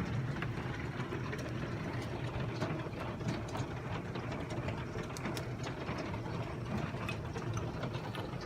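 Hail falling on roofs: a dense, irregular patter of sharp ticks and clicks over a steady low hum.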